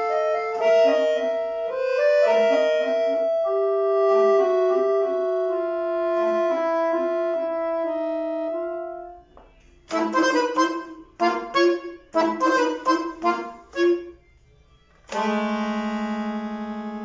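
Piano accordion playing solo: a melody over held chords that fades out about nine seconds in, then a run of short detached chords, a brief pause, and a loud held chord near the end that slowly dies away.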